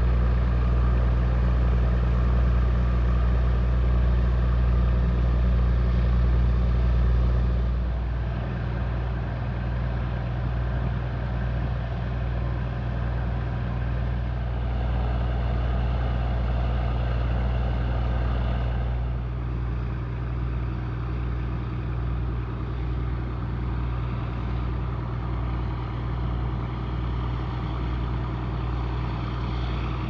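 Steady low hum of a moored 499-ton fisheries patrol ship's onboard machinery running at a constant idle. It drops slightly in level about eight seconds in.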